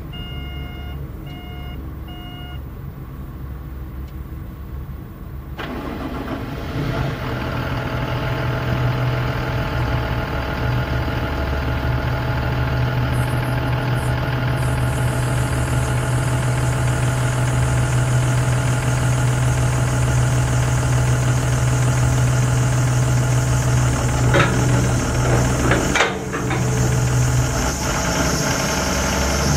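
Terex TXC225LC excavator's diesel engine running, with three short beeps over a low idle at the beginning. About six seconds in the engine is throttled up and then runs steadily at higher revs; a high-pitched whine joins later, and there are a couple of clunks near the end.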